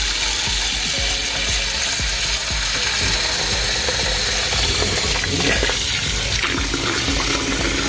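Water poured in a steady splashing stream from a metal cup into a ceramic bowl, filling it so it weighs down corn husks soaking beneath. Near the end the pour stops, and a few knocks and rustles come as the bowl is pushed down onto the wet husks.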